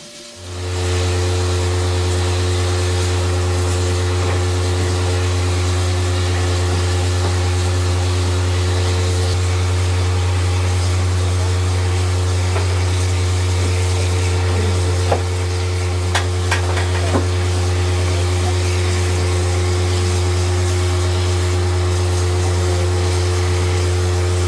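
Loud, steady low mechanical drone from the running machinery of a 1910 Leslie-patent steam rotary snow blower. It starts abruptly just after the opening, with a few faint clicks around the middle.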